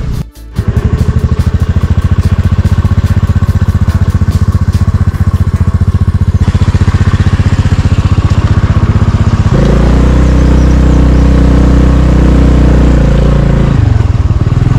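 Small scooter engine running under load while climbing a steep road, with a fast, even firing pulse. It breaks off briefly just after the start, and from about ten seconds in it grows louder with a steadier tone until shortly before the end.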